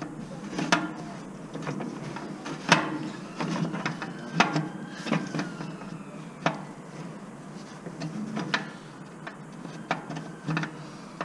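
Irregular metallic clinks and knocks of hand tools against rusty steel parts as bolts are worked loose by hand, some clinks ringing briefly.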